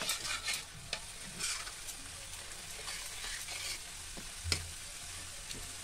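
A steel spoon stirs and scrapes onion-garlic masala paste around an iron kadhai over a steady sizzle on high flame. There is one sharp tap about four and a half seconds in.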